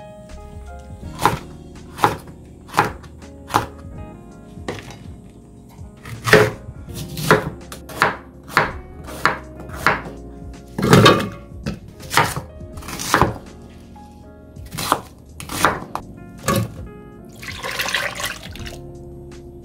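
A chef's knife chopping on a cutting board in single strikes, roughly one a second, cutting green onions and then Korean pear into chunks. Near the end comes a short pour of thick glutinous-rice paste into a blender jar.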